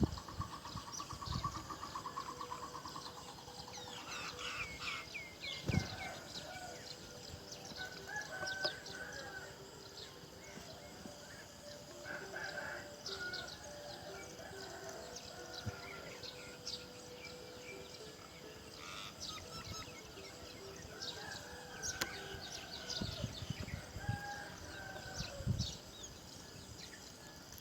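Many birds calling and chirping, with short repeated chirps throughout, a trill in the first two seconds and a quick run of falling chirps about four seconds in. A few soft knocks come through underneath.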